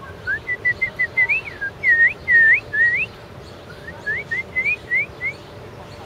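A songbird singing two phrases of clear whistled notes: quick short notes and swooping, U-shaped slurs, loudest in the middle of the first phrase, with a short pause before a softer second phrase.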